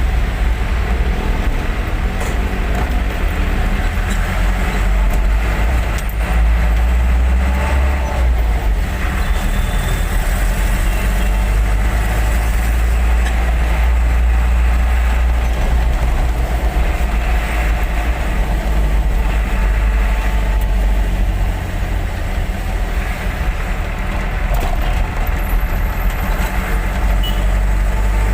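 Truck engine running with a steady deep rumble and road noise of a truck on the move.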